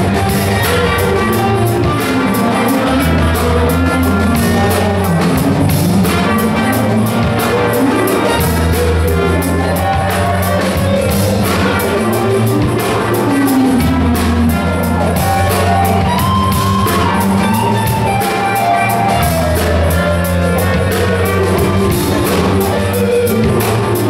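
Live funk band playing a groove on bass, drums, electric guitar and keyboards, with a trumpet playing a melodic line over the top.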